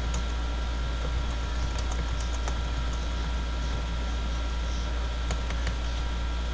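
Computer keyboard typing: scattered key clicks through the first couple of seconds and a quick run of several clicks a little after five seconds, over a steady low hum.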